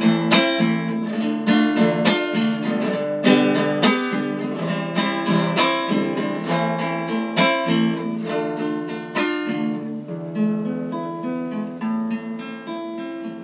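Solo nylon-string classical guitar playing an instrumental break of quick plucked and strummed notes, with no voice, growing softer toward the end.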